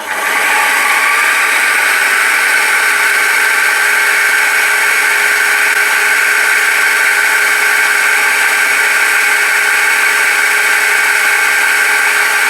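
Milling machine spindle switched on and running steadily at speed, a loud even whine with several fixed tones, while touching off the part to find its centre.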